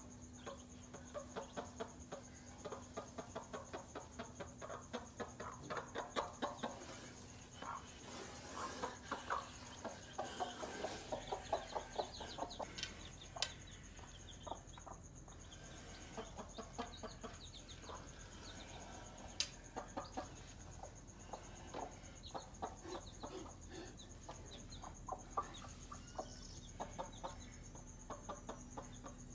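Hen clucking in rapid, repeated runs of short calls, the agitated alarm clucking of a mother hen facing a snake near her chicks.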